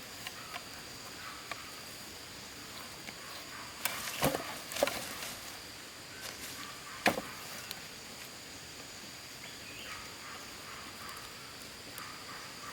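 Steady high insect chirring in the background, with a few sharp knocks: a cluster about four seconds in and one louder knock about seven seconds in.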